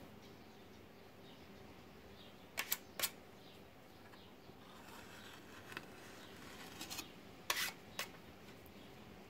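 A few light clicks and knocks from a cast plaster moulding being handled on a workbench: a quick pair and a third about two and a half seconds in, then a scatter of them near seven to eight seconds, over a faint steady hiss.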